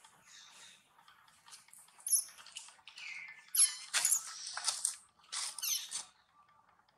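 Monkeys squeaking: a run of short, high squeals with falling pitch, loudest about four seconds in and again near the end, with wet smacking of soft fruit being chewed.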